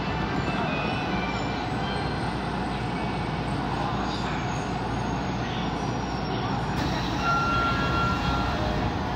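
Steady running noise of a Tokyo Metro Ginza Line 1000 series subway train, heard from inside the car in the tunnel, with a short high tone about seven seconds in.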